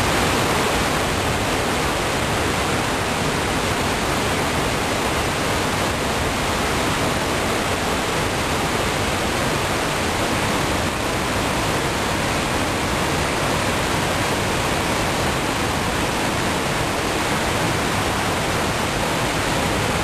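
Water pouring down the tiers of a stepped stone cascade fountain, a steady rushing splash that stays even throughout.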